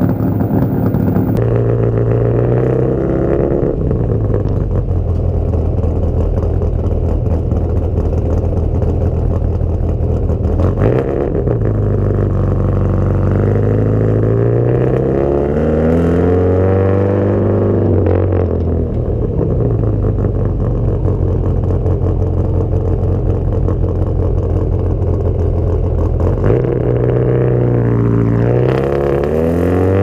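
Ford 5.0 L (302) V8 with 180-degree headers and true dual exhausts without an x-pipe, driving off and accelerating, its pitch climbing and dropping back several times as it goes through the gears. It has an odd, buzzy tone like a heavily modified old VW Beetle engine, caused by the widely spaced megaphone tailpipes letting the two cylinder banks be heard separately from the side of the car.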